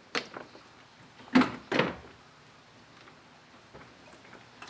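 Radiator mounting bracket being worked loose and lifted off: a light click at the start, then two louder clunks about a second and a half in.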